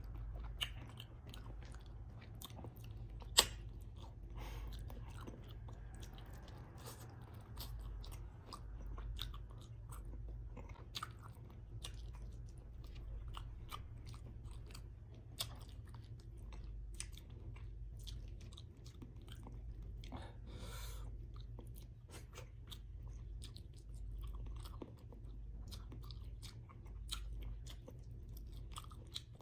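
Close-miked eating: a person chewing salmon head in vinegar stew and rice, eaten by hand, with many small mouth clicks and one sharp louder click about three seconds in. A steady low hum lies underneath.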